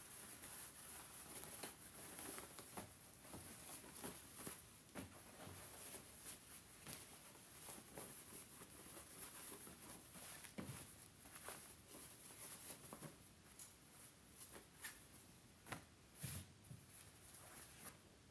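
Faint rustling and scattered soft taps of satin-lined Ankara fabric being handled, turned right side out and laid flat on a cutting mat, with a few firmer taps near the end.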